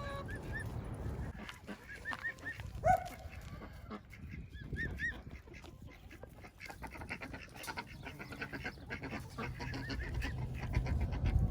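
Bird calls: short high chirps in small groups of two or three, with one louder, lower call about three seconds in, over a low rumble.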